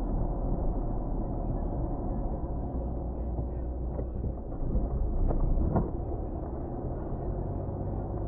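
Car driving: a steady low engine and road rumble, with a few short knocks or rattles between about four and six seconds in.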